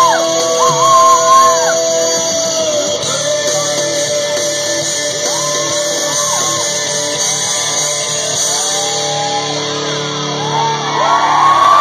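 Music with a singing voice: long held notes and sliding vocal lines, getting louder near the end.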